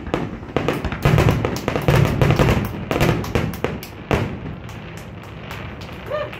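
Aerial fireworks going off: a rapid run of bangs and crackles through the first four seconds or so, thinning out toward the end.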